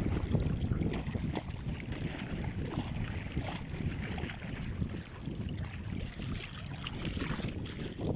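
Wind buffeting the microphone over sea water sloshing around a small fishing boat, with scattered small knocks.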